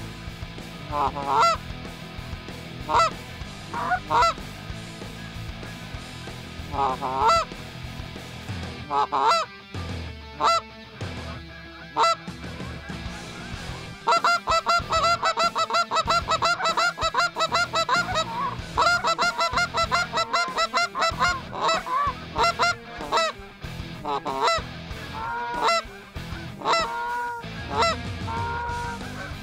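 A flock of Canada geese honking as it circles low overhead. Separate honks at first, then about halfway through a long run of rapid, rhythmic honking, then scattered honks again near the end.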